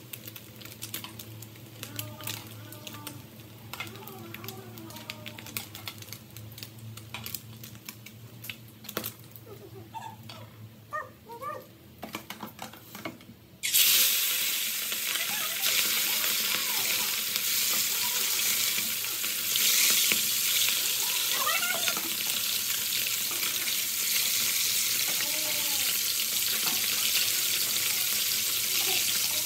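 Tongs clicking against a metal frying pan while fish fries quietly in oil. About halfway through, more fish is dropped into the hot oil and it bursts into a loud, steady sizzle that carries on to the end.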